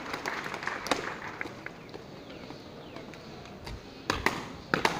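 Ceremonial parade boots of marching border guards stamping on a paved parade ground. One sharp stamp comes about a second in, then several close together near the end.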